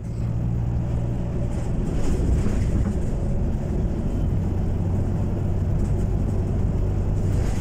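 Overhead high-voltage power lines humming steadily, a low hum under a constant rushing, crackling noise.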